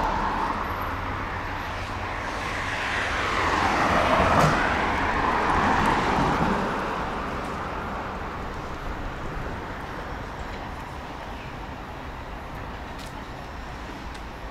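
Road traffic: a vehicle passes by, its noise swelling to a peak about four seconds in and fading away, leaving a fainter steady hum of traffic.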